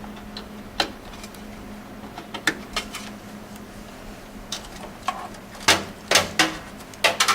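Scattered plastic clicks and knocks as a PC power supply's additional 12 V CPU power connector is handled and pushed into its motherboard socket, with a cluster of louder clicks about six to seven seconds in. A faint steady hum runs underneath.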